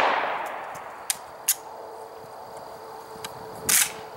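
Echo of a 7.62x39 shot from an AK pistol fading away, then two light metallic clicks and, about three and a half seconds in, a loud short clack of the bolt being racked by hand to clear a failure to extract.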